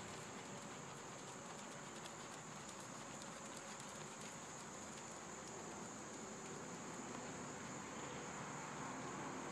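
Steady, high-pitched insect buzz, with faint hoofbeats of a horse trotting on arena sand in the first few seconds.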